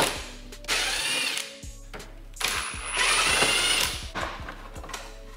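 Cordless drill driving screws out of a truck's tow-mirror housing in short bursts, the motor spinning up in pitch each time, the longest burst a little over a second.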